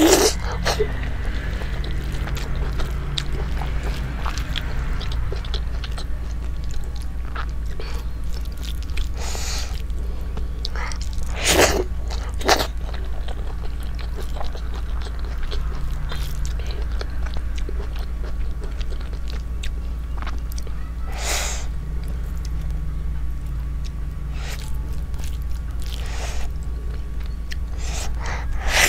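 Close-miked chewing and mouth sounds of someone eating rice and chicken curry by hand, with a handful of sharp smacks scattered through, over a steady low hum.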